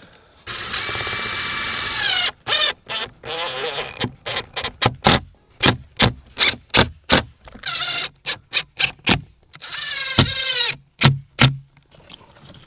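Cordless drill driving screws through a steel gate hinge into a wooden post. The motor runs in a long steady whine, then in many short trigger bursts, with a few longer runs where it spins up.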